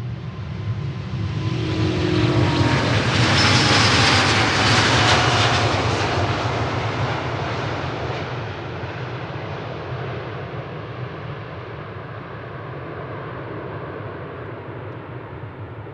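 Airbus A350-941 with Rolls-Royce Trent XWB jet engines at takeoff power, passing by. The roar swells to a peak about four seconds in, and whining tones drop in pitch as it goes past. Then the roar fades slowly.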